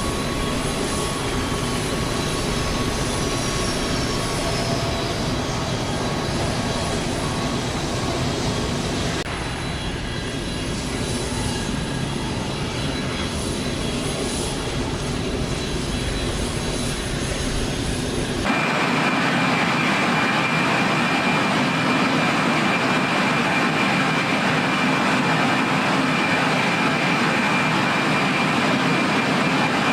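Aircraft engine noise of a plane standing on the ground, a steady running sound. It is cut abruptly from one recording to another twice, about 9 and 18 seconds in. The last recording is thinner in the bass and carries a steady high whine.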